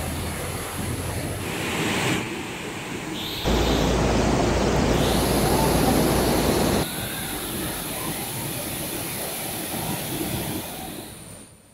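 Shallow rocky river rushing over stones and boulders: a steady wash of water, louder for about three seconds in the middle.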